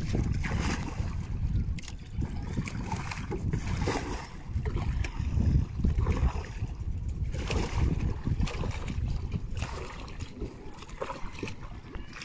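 Single wooden paddle stroking and splashing beside a small outrigger canoe as it moves through calm water, surging every second or two. Wind rumbles steadily on the microphone.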